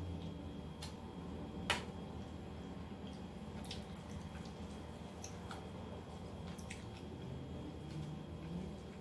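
A person eating greasy food by hand: soft wet smacks and squishes with scattered small clicks, and one sharper click just under two seconds in, over a low steady hum.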